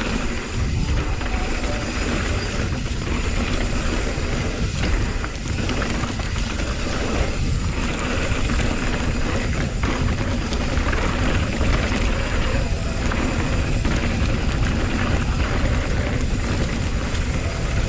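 Ragley Big Al aluminium hardtail mountain bike ridden down a trail: the knobby Maxxis DHF/DHR tyres rumble over dirt, and the frame and drivetrain give off a steady run of knocks and rattles, with wind buffeting the microphone.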